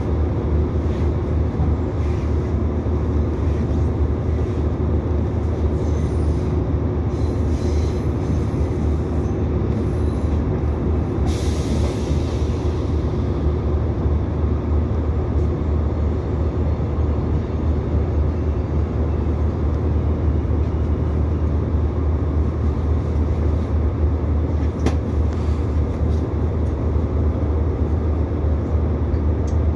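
Inside an Irish Rail 2800-class diesel railcar running along on the approach tracks: a steady low drone of the underfloor engine and running gear with wheel-on-rail noise. A short hiss comes about eleven seconds in.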